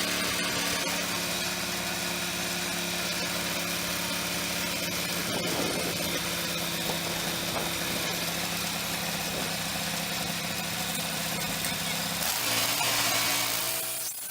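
Wood-Mizer portable band sawmill running, its engine holding a steady speed under a high hiss. About twelve seconds in the engine note drops as it throttles down, and the sound stops abruptly near the end.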